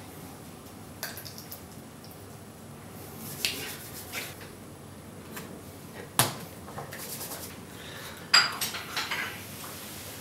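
Serving tongs and a dinner plate clinking and knocking as a burger is put together on the plate: a few separate sharp clicks, with a sharp knock a little past halfway and the loudest clatter near the end.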